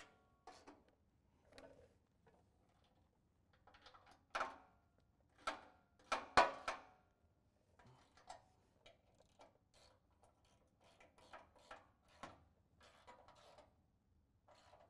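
Hand ratchet with a 19 mm socket tightening bumper bracket bolts: scattered metal clicks and knocks, a few louder ones between about four and seven seconds in, then lighter, quicker ticking.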